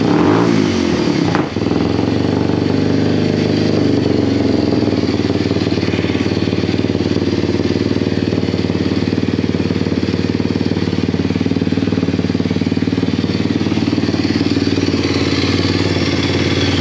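Kawasaki KLX230SM's air-cooled single-cylinder four-stroke engine running through a newly fitted Norifumi Trex SS aftermarket exhaust shortly after a cold start. The revs drop back from a brief rise in the first second or so, and it then idles steadily and very loud.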